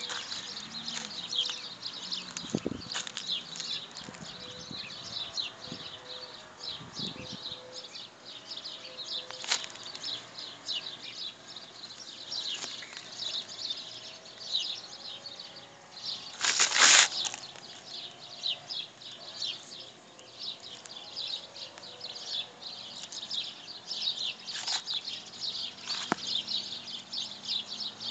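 Dense, continuous chatter of many small birds chirping, with a brief loud rustle about halfway through.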